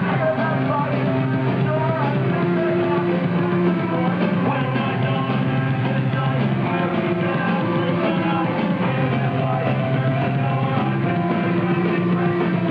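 Punk rock music playing at a steady level, with singing.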